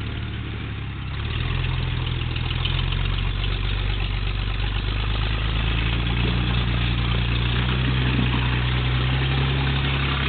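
Off-road vehicle's engine pulling under load as it crawls up a rock ledge: it revs up about a second in and holds, the pitch creeping slightly higher.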